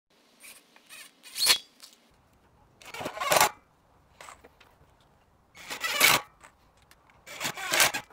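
Cordless drill driving 35 mm screws through steel X-leg brackets into a wooden bench top, in several short bursts of about half a second each with pauses between.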